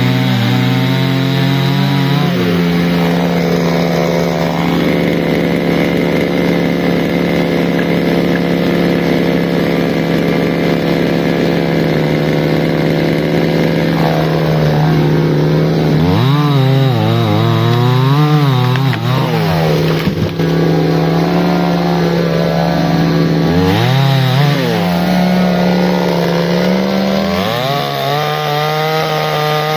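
Two-stroke chainsaw cutting wood. Its engine note drops about 2 seconds in as the chain bites and holds steady under load. From about halfway on, the engine speed rises and falls repeatedly, with a climb near the end.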